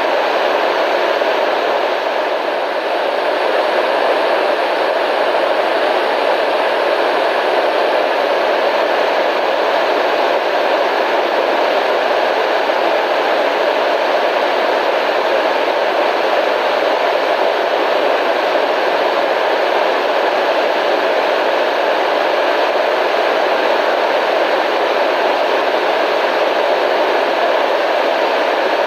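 Constant radio static: a loud, even hiss that stays the same, dull rather than bright, with its weight in the middle range and little at the top.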